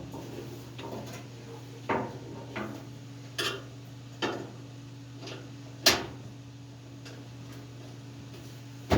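Metal parts and hardware being handled: about six separate clicks and knocks, the loudest about six seconds in, over a steady low hum.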